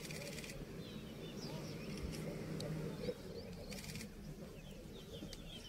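Two quick bursts of camera shutter clicks, one right at the start and another about four seconds in, over low murmuring voices and small birds chirping.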